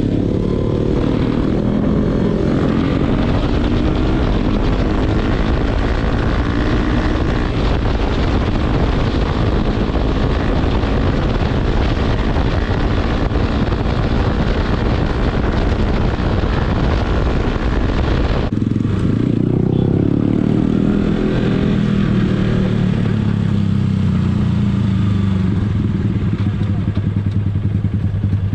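Motorcycle engine running at speed under heavy wind noise on a helmet-mounted microphone. About two-thirds of the way through the wind noise drops sharply, and the engine's pitch falls and then holds steady as the bike slows.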